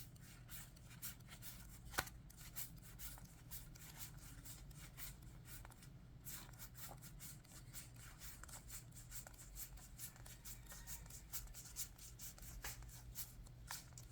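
Faint rustling and light ticking of trading cards being handled and slid against one another, with one sharper click about two seconds in.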